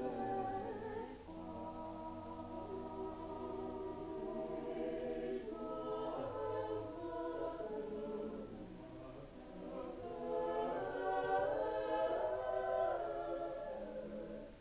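Mixed choir of men and women singing sustained chords, dipping softer a little past halfway, then swelling to its loudest before easing off near the end.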